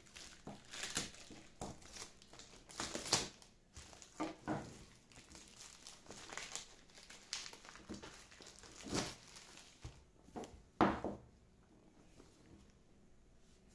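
Packaging being unwrapped by hand, crinkling and tearing in irregular handfuls. The loudest rustles come about three, nine and eleven seconds in, and the handling dies down soon after.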